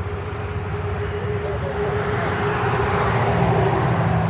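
Road traffic: a motor vehicle passing, its engine and tyre noise swelling to a peak about three seconds in and then easing, over a steady low hum.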